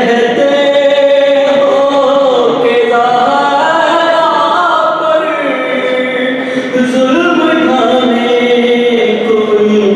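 A man chanting a marthiya, a sung elegy, solo into a microphone in long held notes that rise and fall slowly. He pauses briefly for breath twice.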